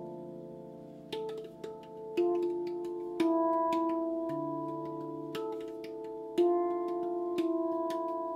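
RAV Moon steel tongue drum in the D Integral scale, played with bare hands: single notes struck at an unhurried, uneven pace, each ringing on long and overlapping the next into a layered, sustained chord.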